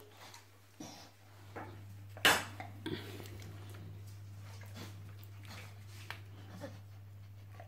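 Dogs' claws clicking and tapping on a tiled floor, with one sharp knock about two seconds in, over a steady low hum.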